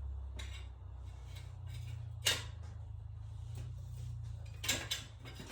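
Socket and hand tools clinking and knocking against metal in an engine bay while working a stuck spark plug: a few sharp clicks, the loudest about two seconds in and again near the end, over a steady low rumble.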